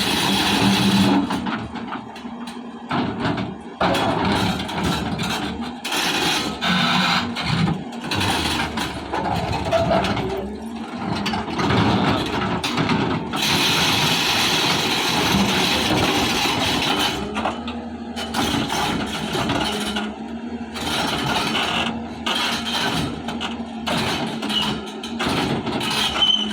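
Hyundai hydraulic excavator's diesel engine working under load, with irregular knocks and scraping throughout.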